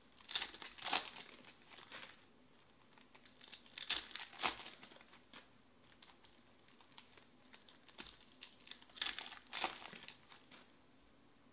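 Trading-card pack wrappers crinkling and tearing as packs are ripped open and the cards pulled out, in three short bursts.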